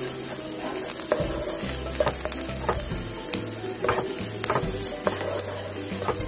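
Wooden spatula stirring chopped onions frying in mustard oil in a non-stick frying pan: irregular clicks and scrapes of the spatula on the pan over a light sizzle.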